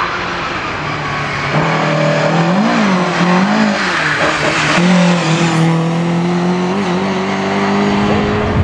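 Rally car engine revving up and down twice about three seconds in, then accelerating with a steadily rising pitch through the second half, with tyre and road noise under it.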